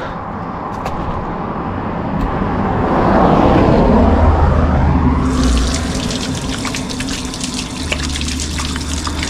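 A vehicle passes, swelling and fading, and then about five seconds in water starts running from a fountain spout, splashing steadily.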